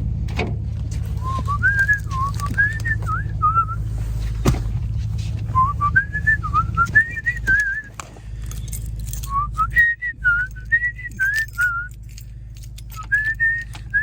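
A person whistling a tune in short phrases of a few seconds each, over a steady low rumble.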